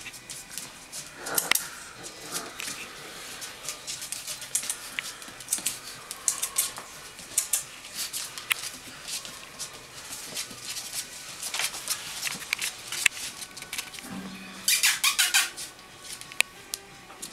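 Presa Canario puppies about three weeks old moving on a hard laminate floor, their claws clicking and scrabbling, with a few short high squeaks from the puppies.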